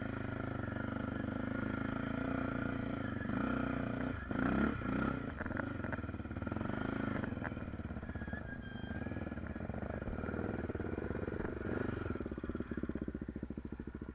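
Honda XR 250 Tornado's single-cylinder four-stroke engine, bored out to 280 cc and fitted with a ProTork Powercore exhaust, idling steadily. It is briefly louder about four seconds in.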